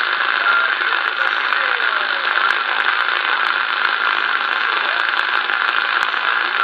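Steady static hiss from a Superstar SS 6900N CB transceiver's speaker while it receives on single sideband, with a few faint crackles. The distant station's signal is fading into the noise as propagation drops.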